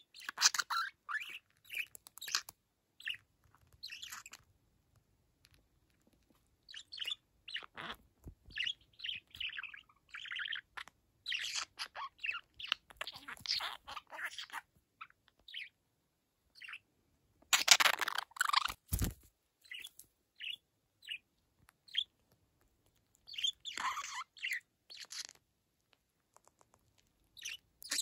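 Young budgerigar chirping and warbling in short bursts, its chatter broken by pauses: a bird just beginning to talk, with a mimicked Japanese phrase ('mendokuse') somewhere in the chatter. A couple of light knocks come between the chirps.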